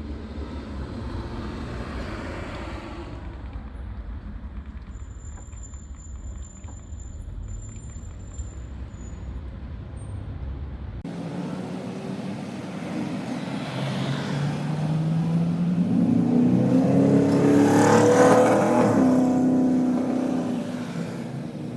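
Steady low rumble of outdoor traffic that cuts off abruptly about eleven seconds in. Then a passing motor vehicle's engine is heard, rising in pitch and growing louder to a peak near the end before fading.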